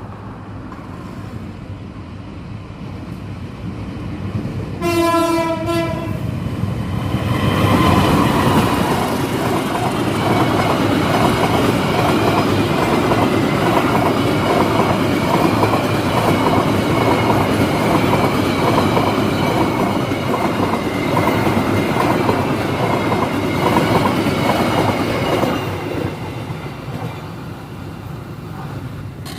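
A train sounds one short horn blast about five seconds in as it approaches, then passes close by. Its wheels clatter over the rail joints in a steady rhythm for about eighteen seconds, then the sound dies away.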